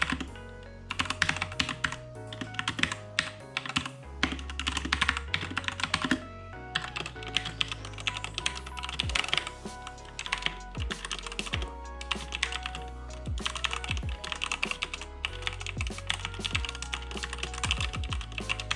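Typing test on a Redragon Kumara K552 mechanical keyboard with Outemu Red linear switches: fast, uneven runs of key clacks in bursts with short pauses, over background music.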